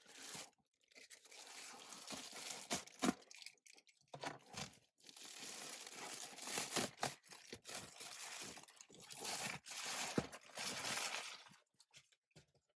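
Packaging from a mail-order parcel being torn and crinkled open by hand, in a run of uneven rustles and short sharp crackles with brief pauses.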